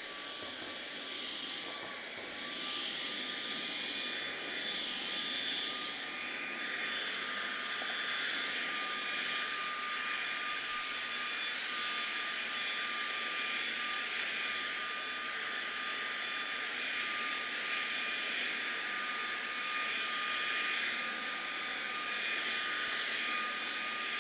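AGARO Sapphire cordless handheld vacuum cleaner's brushless motor running steadily with a high whine and hiss, working through a long extension tube and sucking up a pile of fine dust from the floor.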